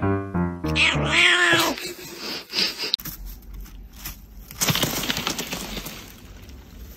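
A cat gives one drawn-out meow, rising and then falling in pitch, about a second in. A few seconds later there is a hiss of rushing noise with scattered crackles.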